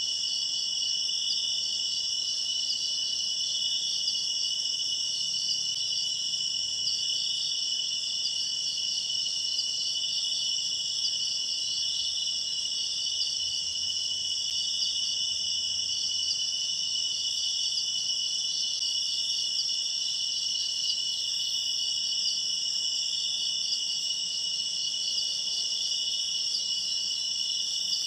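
Steady chorus of night insects, a dense high-pitched shrilling in several layers that holds unbroken throughout.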